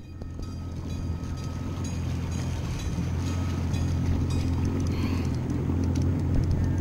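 A boat's outboard motor running with a steady low hum. It grows gradually louder over the first few seconds, then holds.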